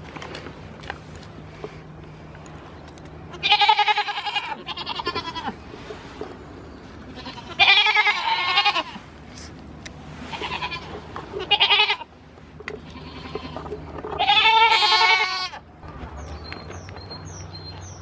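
Goats bleating close by: about five loud, quavering bleats a few seconds apart.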